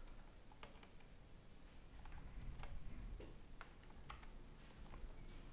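A few faint, irregularly spaced clicks and taps over quiet room tone.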